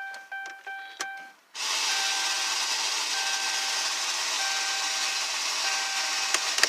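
Vehicle warning chime ringing over and over, about three chimes a second. About a second and a half in, a loud steady rushing hiss covers it, with a click near the end.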